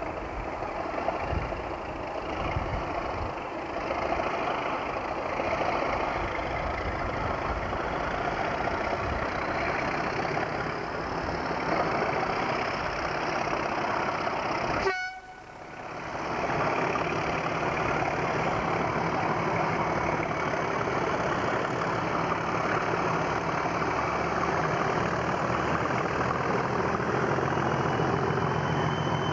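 English Electric Class 37 diesel locomotives, a pair, running under power at the head of a heavy container train. About halfway the sound cuts off abruptly, and after it a Class 37's diesel engine runs steadily close by with a low, even note.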